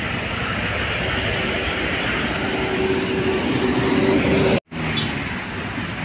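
Heavy highway traffic rushing past, buses and cars going by with a steady tyre-and-engine noise and a faint steady hum partway through. The sound drops out for an instant near the end.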